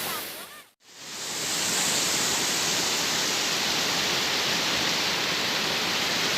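Steady rushing of a waterfall. Just under a second in it fades out to silence for a moment, then swells back.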